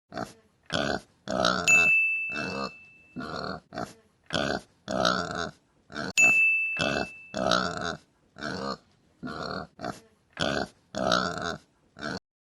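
Pig grunting, a quick series of short grunts in bunches. A bright ringing ding sounds twice, about two seconds in and again about six seconds in.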